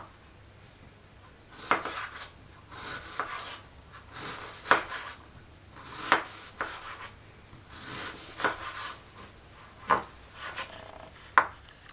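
Chef's knife dicing an onion on a bamboo cutting board: scraping strokes of the blade through the onion, each ending in a sharp knock on the wood, every second or two from about a second and a half in.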